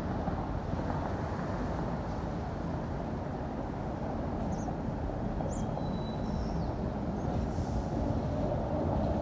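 City street traffic with a steady low rumble of passing vehicles, swelling a little near the end. A few brief faint high squeaks come a little past halfway.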